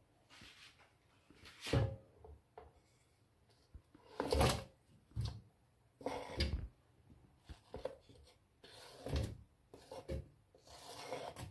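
A wooden spoon scraping chopped onion and potato pieces off a plastic cutting board into a stainless steel pot, heard as several separate short scrapes and knocks with pauses between them.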